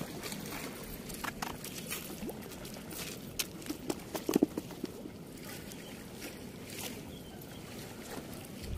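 Steady rush of flowing river water, with scattered small clicks and rustles as a nylon cast net with chain weights is gathered and arranged in the hands; the loudest cluster of clicks comes about four seconds in.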